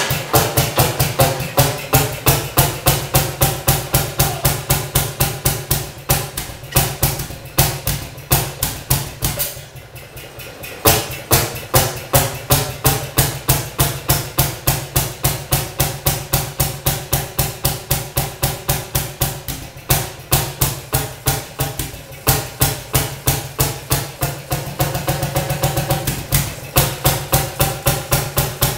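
Fairmont QB single-cylinder two-stroke engine on a Fairmont S-2 railroad motorcar, catching on the first pull and running with a rapid, even popping. The beat falters and weakens about ten seconds in, then picks back up. This is its first run after a frame-up restoration and decades out of service.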